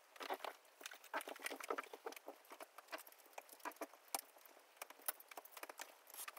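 A rapid run of irregular small clicks, taps and rustles, sped up.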